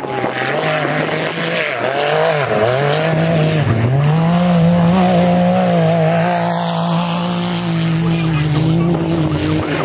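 Off-road race vehicle's engine revving hard as it drives through deep mud. The engine pitch dips twice in the first four seconds, as the throttle is lifted or the gears change, then holds at high, steady revs.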